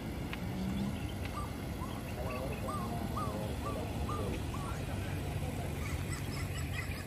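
A bird calling a quick run of about seven short, repeated notes, over a steady low rumble.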